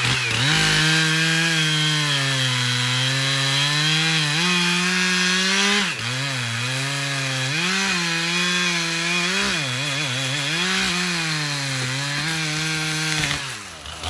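Gas chainsaw making the felling cut through a standing pine trunk, running hard with its pitch sagging and recovering as it works the wood under load. About a second before the end the saw is let off.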